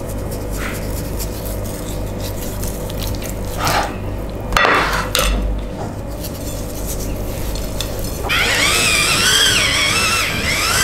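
Hands rubbing salt into a raw whole chicken, with soft rustling and a couple of handling knocks about four to five seconds in. About eight seconds in, an electric pepper grinder starts, whirring with a wavering high whine.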